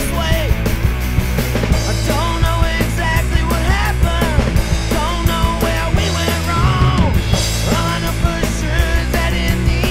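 Original rock song with a steady drum beat and a heavy bass line under a bending melody line.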